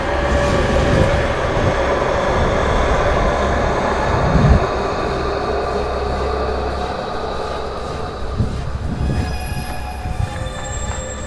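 Sustained high metallic squealing tones held at several pitches over a low rumble, with a few low thumps in the middle and near the end.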